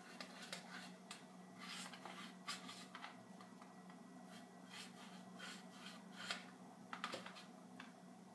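Faint, irregular scratchy strokes of a paintbrush dry-brushing, the bristles worked on a paper plate and swept over a painted craft pumpkin, over a steady low hum.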